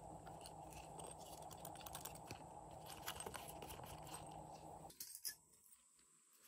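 Faint handling of a small umbrella-shaped zipper pouch: light clicks and ticks of the zipper and plastic parts over a steady low hiss that cuts off about five seconds in.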